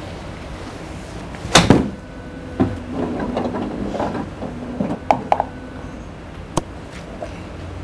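A golf club striking a ball: one sharp crack about a second and a half in, followed by a few fainter clicks.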